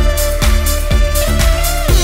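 Background music with a steady beat of about two a second and a held melody line that slides in pitch.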